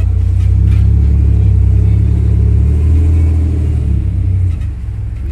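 Motor vehicle driving: a steady low engine and road rumble that eases off a little about four and a half seconds in.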